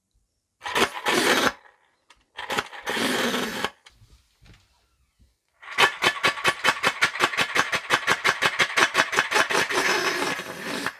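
3D-printed compressed-air piston engine at 60 PSI, starting with two short hissing bursts of air, then running with a fast, even chuffing of exhaust puffs, about eight a second, spinning its fan propeller. It makes a weird noise that the builder cannot explain, and he suspects an air inlet so narrow that it starves the engine of air.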